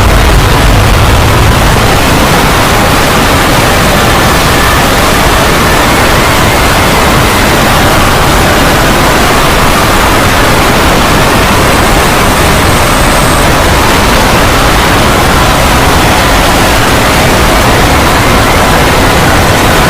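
A loud, steady rushing noise with a deep rumble underneath, unchanging and unbroken.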